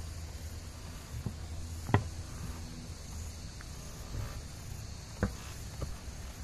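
Outdoor background with a steady low rumble and a faint high hiss, broken by a few sharp knocks, the loudest about two seconds in and another a little after five seconds.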